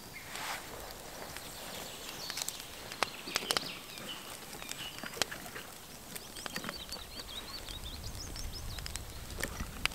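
Small birds singing, with a run of short, quick, high chirps in the middle, over scattered clicks and rustles of gear being handled. A low rumble comes in near the end.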